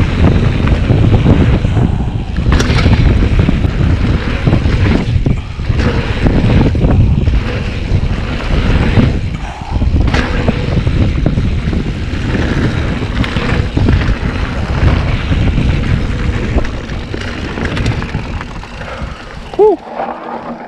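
Wind buffeting an action camera's microphone over the rumble and rattle of a Specialized Stumpjumper mountain bike's tyres and frame on a dry dirt trail at speed, with many knocks from bumps. Near the end the noise dies down and a brief squeal sounds.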